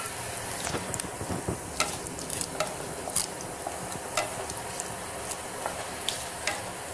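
Chopped cashews and whole spices sizzling in hot oil, stirred with a wooden spatula. Scattered sharp clicks break through the steady sizzle.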